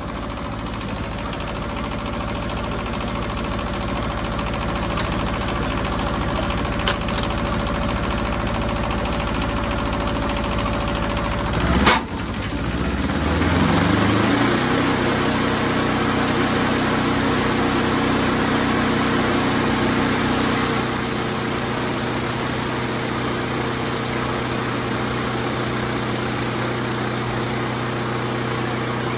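Wood-Mizer LT28 portable sawmill's engine idling steadily, then a sharp clack about twelve seconds in, after which the engine revs up over a few seconds and holds at a higher, louder working speed.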